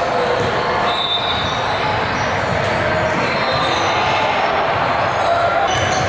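Basketball game in a gym: a ball bouncing on the court over a steady hubbub of voices, with a few sharp knocks near the end.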